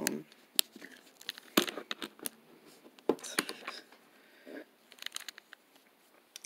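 Handling noise from a hand-held phone camera: irregular sharp clicks and taps with short stretches of rubbing as fingers shift on the device.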